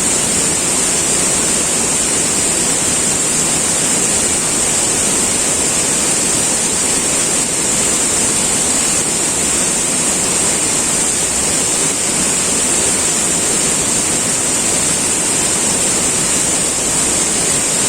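River water flowing, a steady rushing hiss that does not change.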